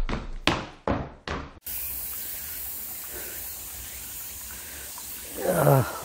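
The last few percussive beats of music, then, about a second and a half in, a sudden cut to the steady rushing trickle of a shallow mountain stream running over rocks, low after a drought. A brief voice sounds near the end.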